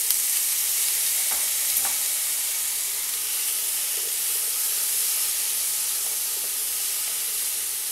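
Raw diced potatoes sizzling steadily in hot oil in a nonstick frying pan, with a few light knocks and scrapes of a wooden spoon stirring them.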